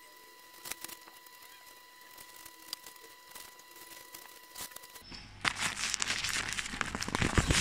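Faint scattered clicks over a steady high tone, then, about five seconds in, a loud dense crackle of masking tape being peeled away from the siliconed glass seams and handled.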